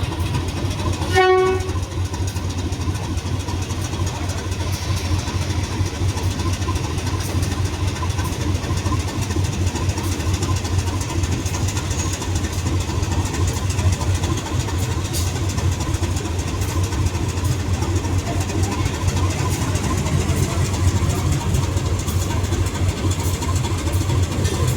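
Diesel locomotive engine running steadily with a low drone, with one short horn blast about a second in.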